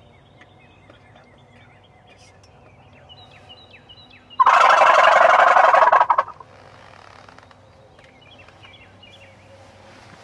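A wild turkey gobbler gobbling once, loud and close: a rapid rattling call of about two seconds that starts about four seconds in.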